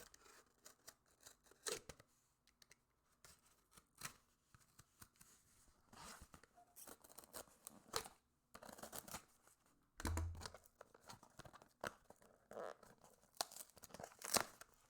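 A postal package being slit with a scalpel and torn open by hand: faint, scattered tearing, scraping and crinkling of paper, with a dull thump about ten seconds in.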